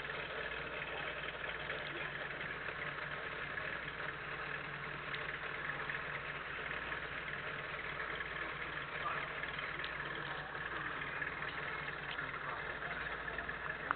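Steady background of car engines idling, with faint voices mixed in.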